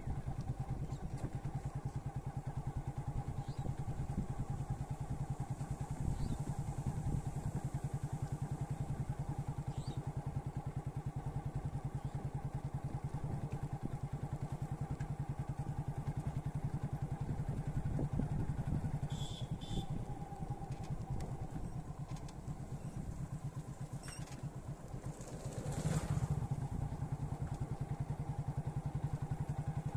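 Motorcycle engine running at a steady cruise, heard from the rider's seat. The level dips a little past the two-thirds mark, then swells briefly about four seconds before the end.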